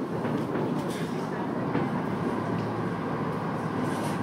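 Steady engine drone heard inside a boat's cabin, with a few faint, muffled firework pops scattered through it.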